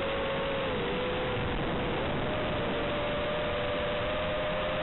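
Steady static hiss of an analog FPV video-link recording, with a pair of close humming tones running through it that dip slightly about a second in and step up in pitch about two seconds in.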